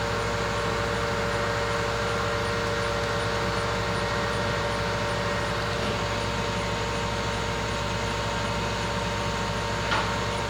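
Kellenberger 600U cylindrical grinder running, a steady hum with several held tones. A single sharp click sounds near the end.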